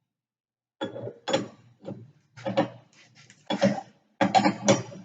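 Metal parts knocking and clinking, about eight sharp clanks at uneven spacing, some with a short ring: spacers, a cone and the arbor nut being fitted and tightened on a bench brake lathe's arbor to hold a brake rotor.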